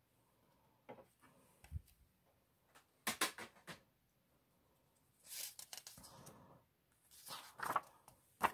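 Paper banknotes rustling as they are handled, in a few short bouts of rustling and light clicks, the loudest about three seconds in.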